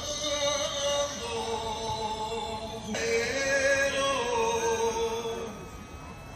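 A song with a solo voice holding long notes one after another, some of them wavering, growing softer near the end.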